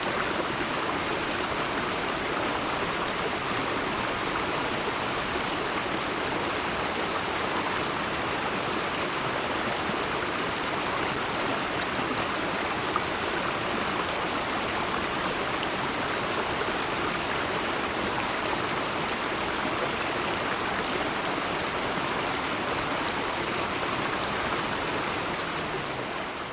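Steady rush of flowing water, fading out near the end.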